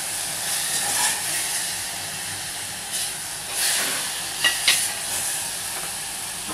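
Chopped vegetables sizzling in oil in a saucepan while a metal spoon stirs them, scraping and knocking against the pan several times.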